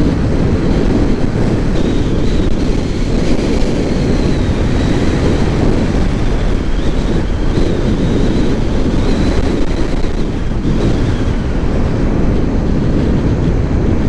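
Riding noise from a moving motorcycle: heavy wind rushing over the microphone, with the engine running underneath, steady throughout.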